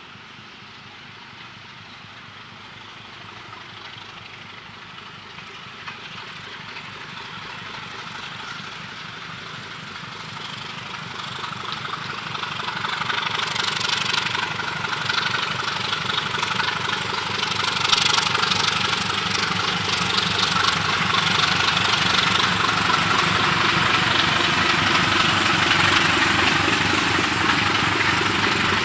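Diesel locomotive hauling a passenger train, its engine working and growing steadily louder over the first dozen seconds as it approaches, then staying loud as the locomotive and coaches pass close by on the rails.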